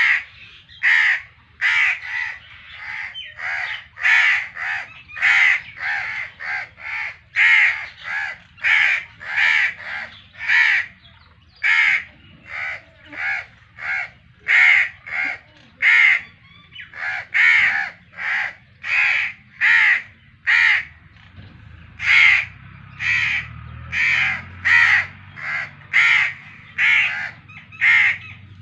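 Crows cawing over and over, about two harsh caws a second with hardly a pause.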